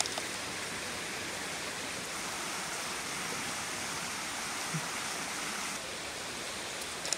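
Shallow creek running over and around rocks: a steady rush of flowing water.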